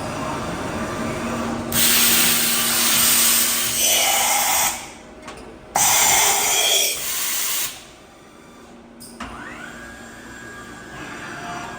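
HERMLE U 630 T CNC vertical machining centre running: two loud bursts of hissing, about three and two seconds long, with a short quieter gap between them. About nine seconds in, a whine rises in pitch and then holds steady.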